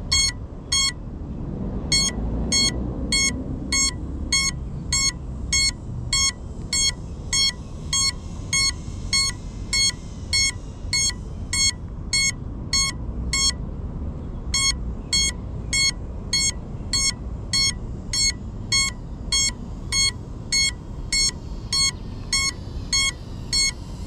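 Crashed FPV drone's lost-model alarm sounding short electronic beeps about twice a second, steadily, over a low rumble. It is the beacon that marks where the downed drone lies.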